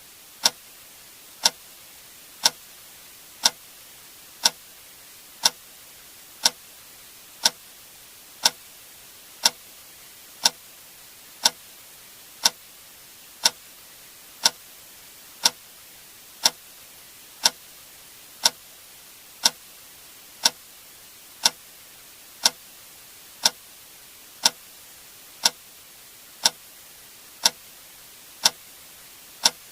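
Click sound effect repeating exactly once a second: a short, sharp tick each time over a faint steady hiss.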